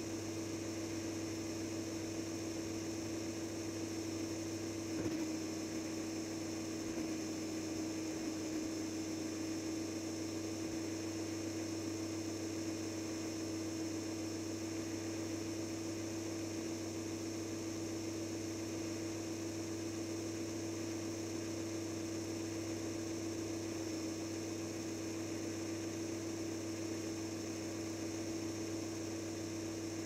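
Steady electrical hum with one unchanging tone, picked up inside the RC truck's body; it does not change as the truck drives. A single short tick about five seconds in.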